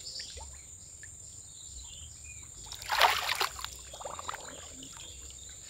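A short rush of splashing water about three seconds in, followed by a few smaller splashes, over a steady high drone of insects.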